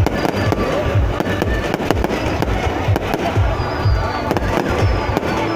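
Aerial fireworks display bursting overhead, with rapid, irregular bangs and crackles one after another, over music playing.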